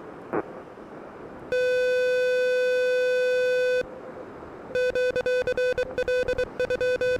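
Morse code sidetone from an Elecraft KH1 CW transceiver: one steady beep held for about two seconds, then a quick run of keyed dits and dahs at the same pitch. A faint hiss of wind and surf lies underneath.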